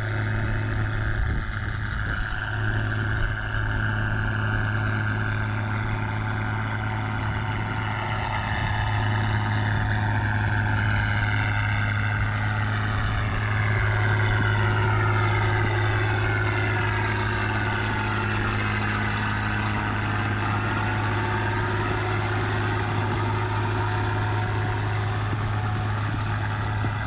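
Farm tractor's diesel engine running steadily as it drives through a flooded rice paddy on steel cage wheels. It grows louder as the tractor comes close, is loudest as it passes about halfway through, then eases off as it moves away.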